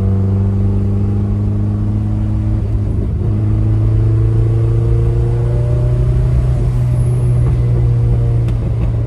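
Turbocharged Mazda Miata's four-cylinder engine pulling the car along at a steady, moderate load, its note shifting about three seconds in and then slowly rising in pitch. A few light ticks sound near the end.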